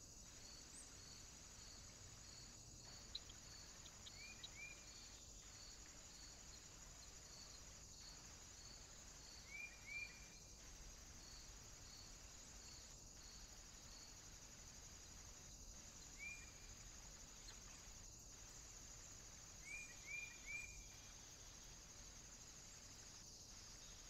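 Faint woodland ambience: a steady high insect hiss with a regular chirp pulsing a little under twice a second, which stops about halfway through. Short high bird chirps come a few times, some in quick twos and threes.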